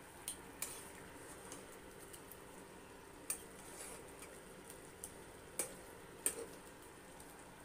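A metal spoon clicking and scraping against a nonstick pan while it moves pieces of fish curry: a handful of faint, sharp clicks spread over several seconds.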